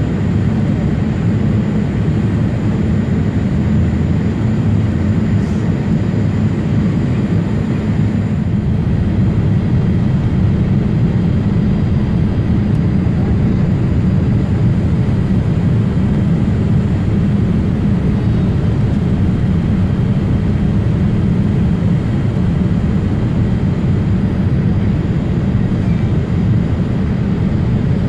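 Steady low rumble of jet engines and rushing airflow inside the cabin of a Boeing 787 Dreamliner, descending through cloud on the approach to land.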